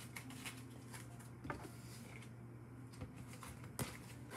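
Tarot cards handled on a wooden table: a few faint clicks, one about a second and a half in and a sharper one near the end, over a steady low room hum.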